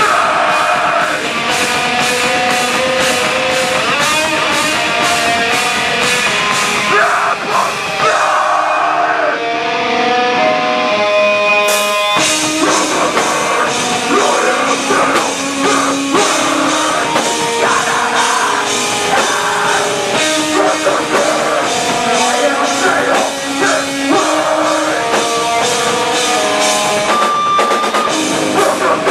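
Rock band playing live, with fast drums, distorted guitars and some vocals. About nine seconds in the drums drop away, leaving a run of guitar notes, and the full band crashes back in about twelve seconds in.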